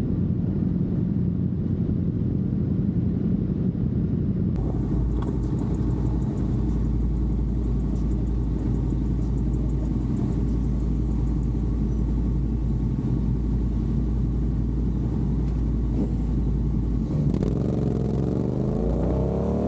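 Sport motorcycle engines running with a steady low rumble in traffic. About two seconds before the end, an engine revs up with a rising pitch as the bikes accelerate away.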